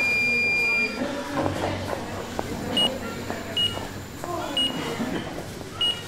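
Hospital ward ambience: an electronic beep holds for about a second, then four short, slightly higher beeps come about a second apart, over background voices.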